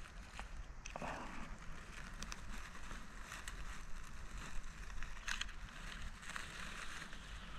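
Footsteps and rustling through dry pine needles, twigs and blueberry shrubs on a forest floor, with scattered small crackles of twigs underfoot.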